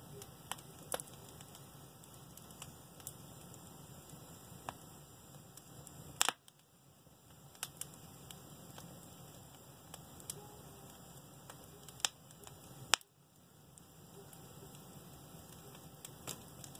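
Wood fire in a fireplace crackling, with scattered sharp pops over a low steady rumble; two loud pops stand out, about six seconds in and about thirteen seconds in.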